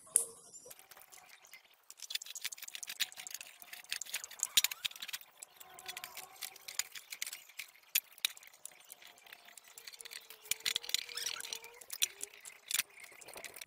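Small hand brush scrubbing the wet, greasy metal parts of a bench drill press: quick, irregular scratchy strokes with occasional sharper ticks.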